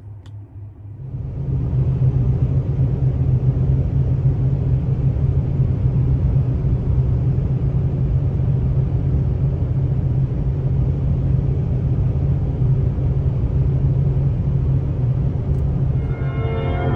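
Steady low rumble of a car's engine and road noise heard inside the cabin while driving, rising in about a second in. Music from the car radio comes in near the end.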